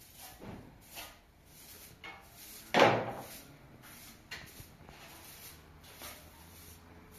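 Short straw hand broom swishing over a tiled floor in short strokes, with one loud knock about three seconds in.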